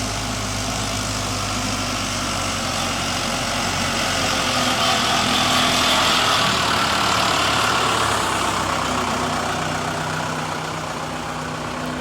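Backhoe engine running steadily as the machine approaches, growing louder to a peak about halfway through and then easing off a little.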